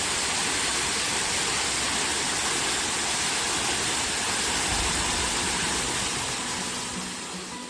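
Steady rush of falling water from a waterfall, fading down near the end.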